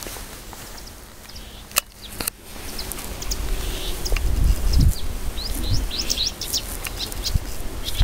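A songbird singing: quick runs of varied high chirps and whistles that grow busier after a few seconds. Two sharp clicks come about two seconds in, and a low rumble runs underneath, strongest about halfway through.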